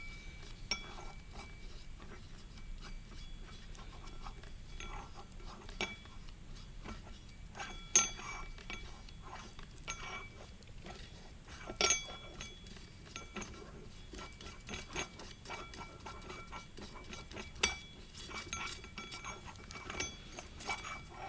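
Metal automatic-transmission parts clinking and tapping against each other as they are handled, with a short metallic ring after several of the knocks; a few sharper clinks stand out, near 8, 12 and 18 seconds in.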